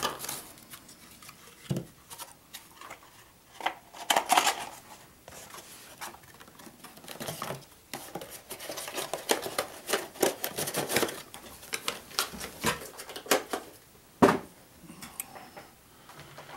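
Computer-part packaging being handled and opened: an irregular run of small plastic clicks, taps and rustling, with a sharper knock about two seconds in and another near the end.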